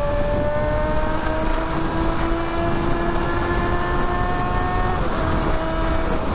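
Sportbike engine pulling steadily at speed, its note rising slowly, over heavy wind rush on the helmet microphone; about five seconds in the engine note changes.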